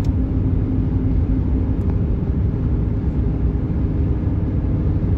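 Steady low road rumble of a car driving in traffic, heard from inside the cabin, with a faint hum that fades about halfway through.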